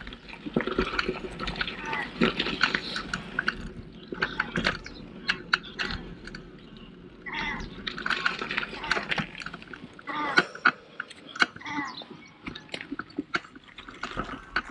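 Waterbirds calling from the water, a few calls clustered about halfway through and again near the end, over a steady rattle and clicking from a folding bike riding along a paved path.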